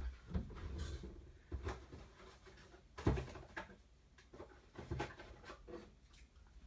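Trading cards being slid into rigid plastic top loaders: scattered light clicks and rustles of card and plastic being handled, the sharpest about three seconds in.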